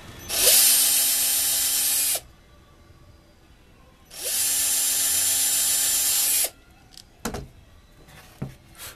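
Power drill running twice, about two seconds each, spinning up quickly to a steady whine while drilling pilot holes for hinge screws into cypress wood. A few light knocks follow near the end.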